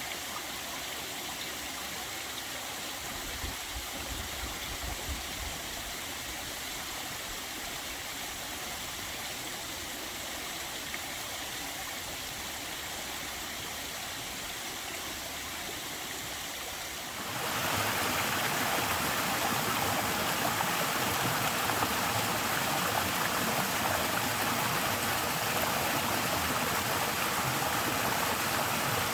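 A small waterfall at fairly low flow, its water splashing and rushing steadily. About two-thirds of the way through, the sound jumps suddenly louder and fuller, then holds steady.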